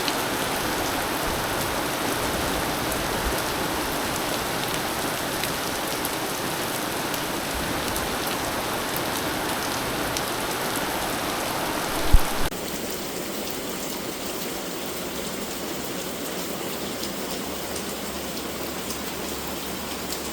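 Heavy rain pouring down in a steady hiss. There is a single short knock about twelve seconds in, after which the rain sounds a little softer.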